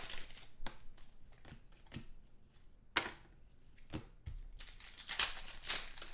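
Foil trading-card pack wrappers crinkling and tearing as packs are ripped open by hand: sharp crackles about once a second, then a denser run of crinkling near the end.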